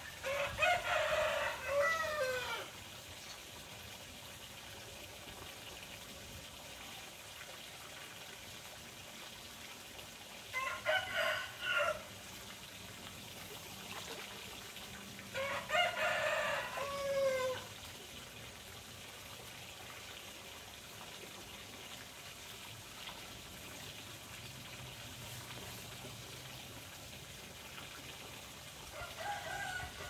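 Rooster crowing: three full crows spread through the stretch, each ending in a falling note, with a fourth beginning near the end. Running water sounds steadily underneath.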